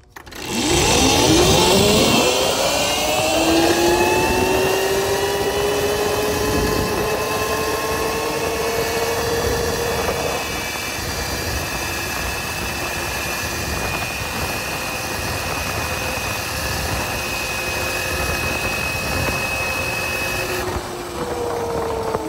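QS180 electric motor and chain drive of an electric quad under full-throttle acceleration from a standstill: a whine that climbs in pitch over the first ten seconds or so, then holds steady at top speed with wind rush. The whine drops in pitch near the end as the throttle eases off.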